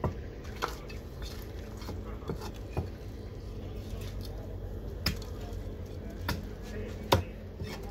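Large knife cutting up a fish on a thick wooden chopping block: wet slicing through the flesh, with about seven sharp knocks of the blade striking the wood at irregular intervals, the loudest near the end, over a steady low hum.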